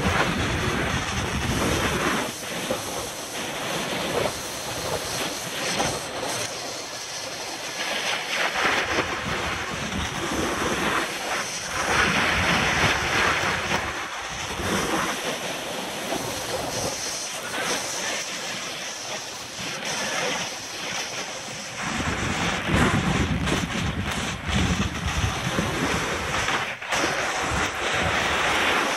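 Skis sliding down a spring snow slope: a rushing hiss of the skis on the snow that swells and fades repeatedly, mixed with wind on the microphone.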